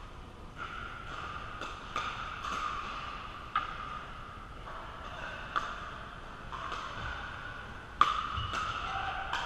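Pickleball paddles striking a hard plastic ball in a doubles rally: a string of sharp pops at uneven intervals, about eight in all, the loudest near the end, over steady background noise in a large indoor court hall.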